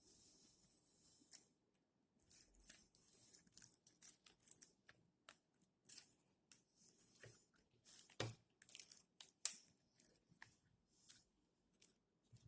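Faint crafting sounds of cardboard being cut and handled: a string of short snips, scrapes and clicks, the sharpest click about nine and a half seconds in.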